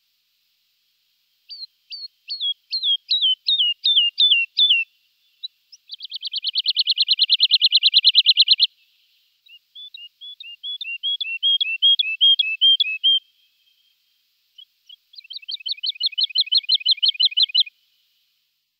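Woodlark singing four phrases with short pauses between them. The phrases alternate between runs of slurred falling whistles and fast, even trills that grow louder as they go.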